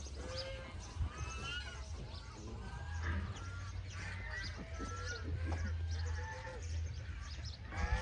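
Several farm animals calling over one another in short, high, bleat-like cries, each bending up and down in pitch, over a steady low rumble.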